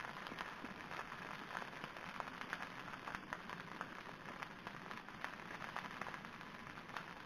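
Beaten egg sizzling and crackling faintly as it cooks on heated banana leaves, with many small ticks and scrapes of a spoon stirring it without pause.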